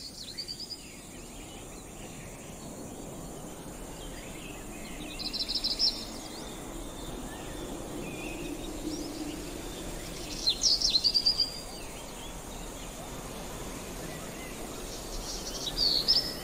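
Tropical forest ambience: a steady background hiss with bird calls breaking in four times, about every five seconds, each a short burst of high, rapid chirps.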